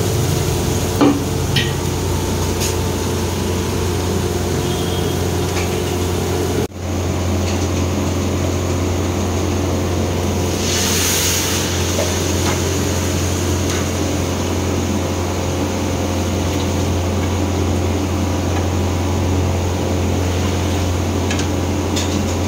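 Steady low mechanical hum of restaurant kitchen equipment, with a few faint clinks and a short burst of hiss about eleven seconds in. The sound cuts out for an instant about seven seconds in.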